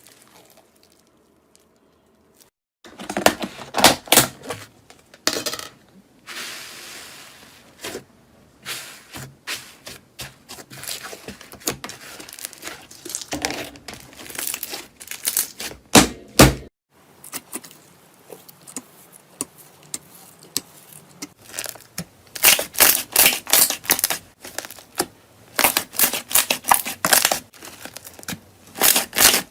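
Slime being squeezed, poked and stretched by hand, making dense crackling and popping clicks in bursts. After a nearly quiet opening of about three seconds, the handling runs in short segments with a brief cut-off about two-thirds of the way through.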